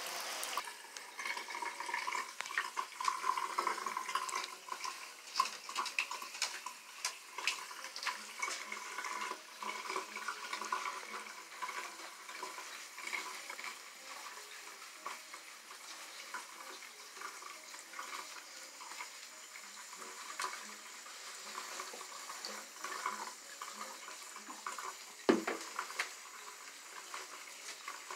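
Shower water spraying and splashing onto a wet dog and the tub floor while hands scrub its wet fur, with many small splashy clicks. One short, sharp knock near the end.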